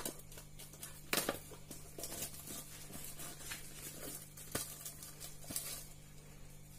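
Clear plastic shrink wrap being pulled off a phone box and handled: faint crinkling with scattered sharp crackles.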